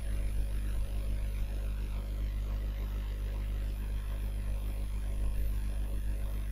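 Steady low electrical hum with a ladder of overtones and a faint hiss underneath: the background noise of the recording, unchanging throughout.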